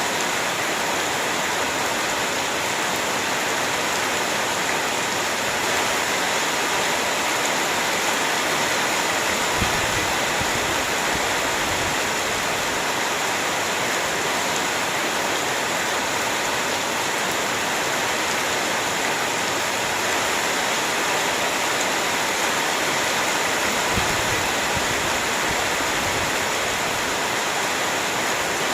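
Heavy rain falling steadily, an even, unbroken hiss, with a couple of soft low thumps about ten seconds in and again later on.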